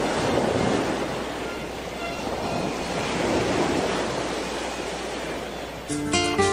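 Audience applauding, swelling and fading over several seconds. Music with a strummed acoustic guitar comes in near the end.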